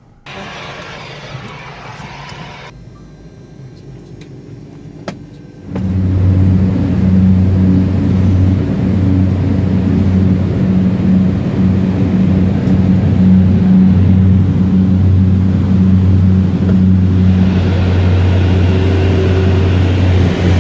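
Cabin noise of a Cessna 406 Caravan II twin turboprop. It is quieter at first, then about six seconds in it jumps to a loud, steady drone with a deep, even propeller hum.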